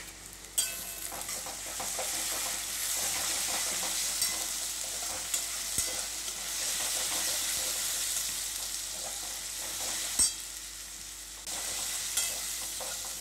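Sliced onions and garlic paste sizzling in hot mustard oil in a kadai, stirred with a metal spatula that scrapes against the pan. The sizzling swells about half a second in, and a sharp knock of the spatula on the pan comes about ten seconds in.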